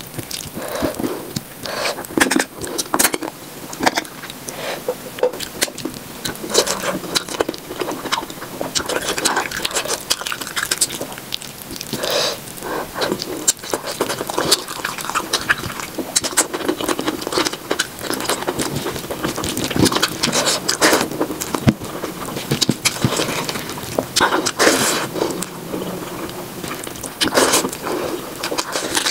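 Close-up mukbang eating sounds played at triple speed: wet chewing, lip smacking and a hand squishing curry-soaked rice and meat, a dense run of quick crackly clicks and squelches.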